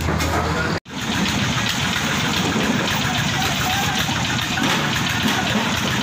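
Engine running steadily with a rapid knocking beat. The sound cuts out completely for an instant less than a second in, then resumes.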